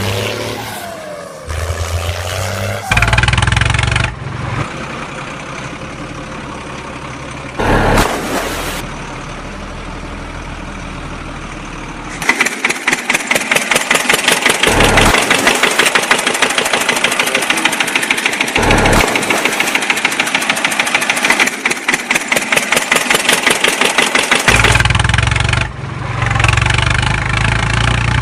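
Tractor engine running, with several abrupt changes. A low rumble comes first, then a fast, even chugging from a little before halfway until near the end, and the low rumble returns at the close.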